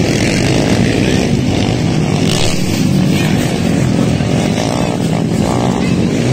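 Dirt bike engines running and revving, the pitch rising and falling as the throttle is worked.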